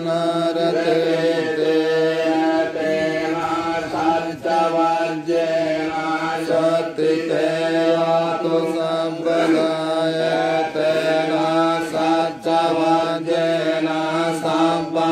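Theravada Buddhist monks chanting Pali verses in a steady, level-pitched recitation, amplified through a microphone.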